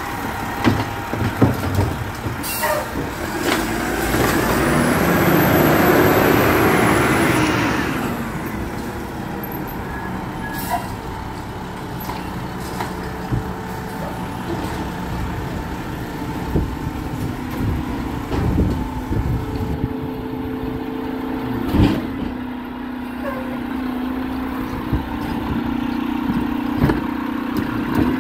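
Garbage truck running, with a loud hiss of air lasting about four seconds a few seconds in. After that the engine runs steadily, with a few sharp knocks.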